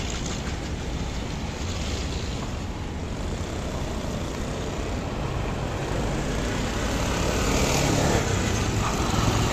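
Road traffic noise: engines of passing cars and auto-rickshaws running, in a steady rumble that grows louder toward the end as auto-rickshaws come close.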